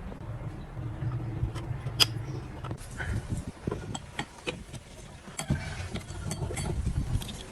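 Metal parts and tools clinking and knocking irregularly during work on an electric wire winch, with a low steady hum for about the first two seconds.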